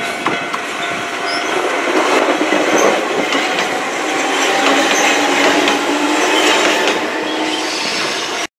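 A former Nankai Railway electric train passes close by, its wheels rumbling on the rails with clicks over the rail joints. The sound swells as the cars go by and cuts off abruptly near the end.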